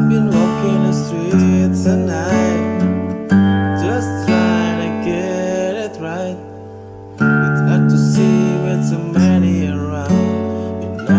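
Background music: a song led by strummed acoustic guitar, dropping away briefly about six seconds in.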